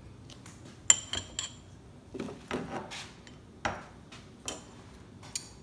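A utensil clinking and tapping against a dish as peppers are spooned onto a sandwich: one sharp, ringing clink about a second in, then a run of softer taps and scrapes.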